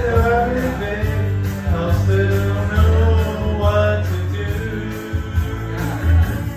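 A man singing karaoke into a handheld microphone over a recorded backing track with a steady bass line, heard through the PA speakers.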